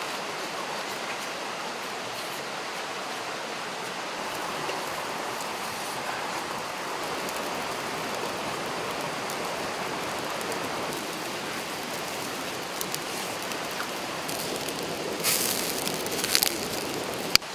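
Pork ribs sizzling over an open wood fire: a steady hiss of fat and juices on the flames, with a few sharp pops of the burning wood crackling near the end.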